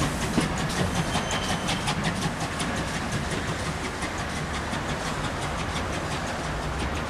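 Steam-hauled train running away over the track, its wheels clicking steadily over the rail joints with a faint hiss of steam, getting slightly quieter over the first few seconds.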